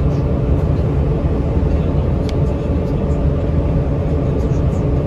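Steady low rumble of a vehicle driving along a road, heard from inside: engine and tyre noise at an even cruising speed.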